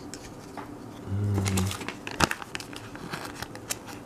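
Handling of a Lego sticker sheet and small plastic bricks: crinkling and a run of light clicks, the loudest a single sharp click about two seconds in.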